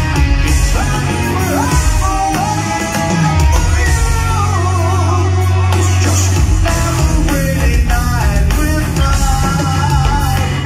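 Live rock band playing loudly: a man sings lead over electric guitars, bass and drums through the venue's PA, heard from the audience. A low bass note is held through the middle.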